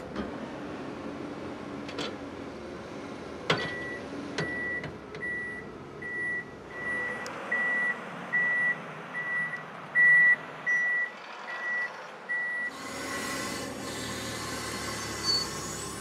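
Pile driving rig's warning beeper sounding about twice a second for some nine seconds, over a steady running machine. A sharp metallic clank comes just before the beeping starts, and the machine noise grows louder after the beeping stops.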